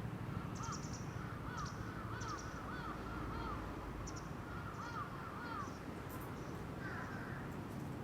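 Birds calling: a long run of short, repeated mid-pitched calls, with thin high chirps from small birds scattered among them, over a steady low background rumble.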